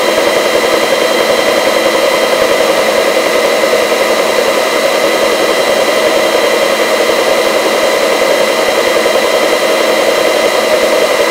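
Helicopter in flight: a steady turbine whine with a constant high-pitched tone over a dense rushing noise of rotor and airflow, unchanging at cruise.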